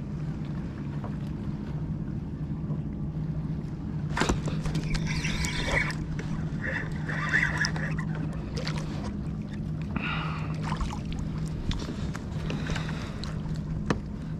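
Watersnake electric trolling motor on a fishing kayak humming steadily while it holds the kayak in place. Water sloshes against the hull a few times from about four seconds in.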